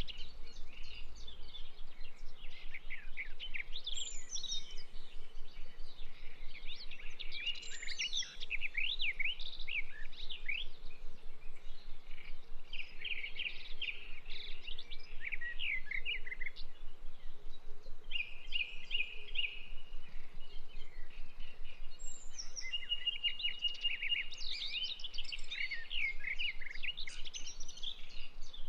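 Birds chirping and singing, many quick high calls overlapping, with a few brief lulls and a steady trill now and then.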